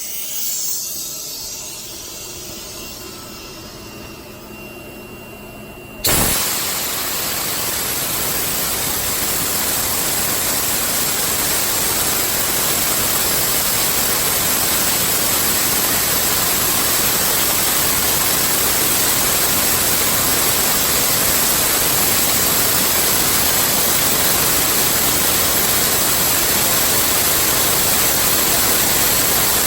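Ingersoll Rand 7100E 15 HP air compressor: a loud, even rushing noise comes on suddenly about six seconds in and keeps going steadily, growing slightly louder. Before it starts there is only a quieter hum.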